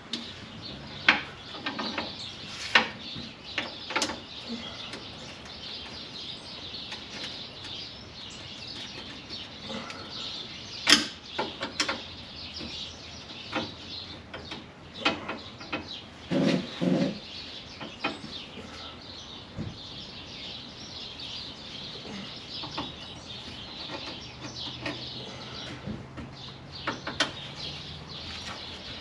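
Hand tools clinking and knocking on metal at irregular intervals while a seized brake line fitting is worked loose with a wrench, over a steady hiss.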